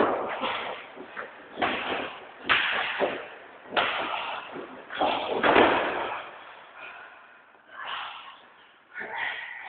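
Wrestlers' bodies slamming down hard again and again, about seven heavy impacts in the first six seconds, each echoing in a large hall.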